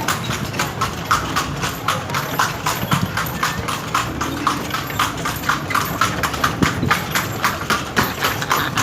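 Hooves of the horse pulling a kalesa, a horse-drawn carriage, clip-clopping in a quick, even rhythm of several hoofbeats a second.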